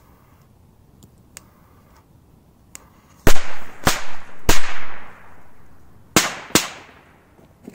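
Firecrackers going off in sand: a few faint pops, then five sharp bangs, three in quick succession about three seconds in and two more a second and a half later, each with a brief fading echo.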